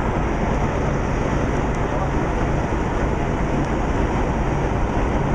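Steady engine and road noise inside a moving tour bus.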